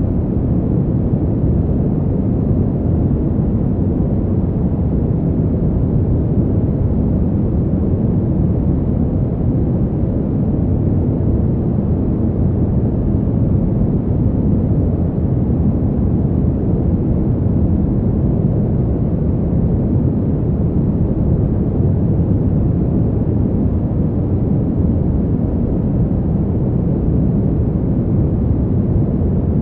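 Fan heater's blower running continuously: a steady, deep rushing noise that sits mostly low, with little high hiss.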